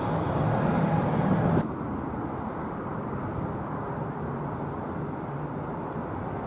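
Jet airliner engine noise from a climbing departure, a steady rumble that cuts off abruptly about a second and a half in. A quieter, duller steady rumble of a distant twin-turboprop landing follows.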